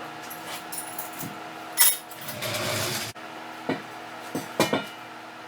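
Work knocks and clanks of tools and parts being handled: one loud knock about two seconds in, then about a second of scraping, then a quick cluster of three or four sharper knocks.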